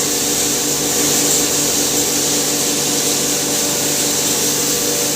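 Hammer mill grinder running steadily: an even, loud hiss with a steady hum beneath it.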